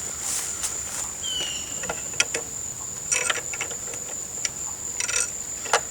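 Crickets trilling steadily in one high tone, with a few sharp metallic clicks of bolts, spacers and the Allen wrench being handled, the loudest about two seconds in and just before the end.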